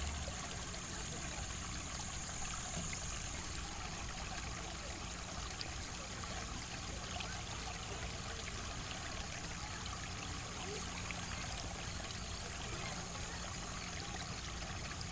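Running water, a steady even rush and trickle like a flowing stream.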